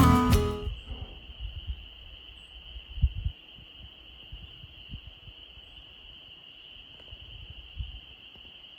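Acoustic guitar music ends within the first second, leaving a steady high-pitched insect drone, with a couple of faint low thumps about three seconds in and near the end.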